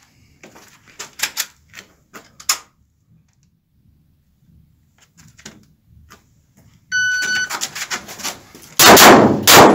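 A few light handling clicks, then a short electronic start beep from a shot timer about seven seconds in. Near the end the first loud Fort-21.03 pistol shots go off, echoing in the room.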